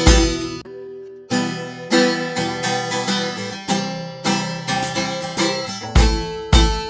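Background music led by strummed acoustic guitar, with a low drum beat that drops out shortly after the start, pauses briefly, and comes back near the end.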